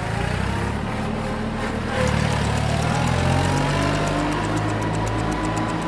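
Tractor engine running steadily, its pitch rising a little about two seconds in.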